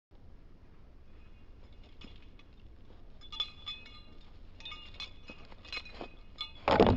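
Light metallic clinking and jingling, a run of small ringing clicks that grows busier from about halfway, with a louder noisy burst near the end.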